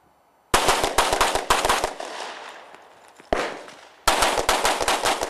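Rapid pistol fire from an Open-division race gun: a fast string of shots, a single shot about a second and a half later, then another fast string.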